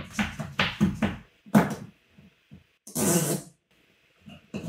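A metal TV wall-mount bracket being handled against drywall: a quick run of knocks and clunks in the first two seconds, then a short scraping rasp about three seconds in and a few lighter taps.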